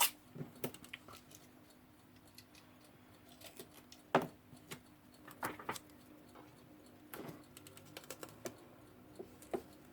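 Faint, irregular small clicks and taps of fingers pressing and smoothing adhesive tape around an alarm clock's glass and bezel.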